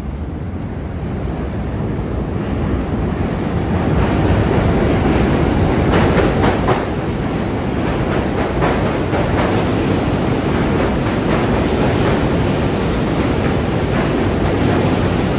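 A subway train passing with a loud rumble that swells over the first few seconds, with clattering of wheels on track from about six to nine seconds in.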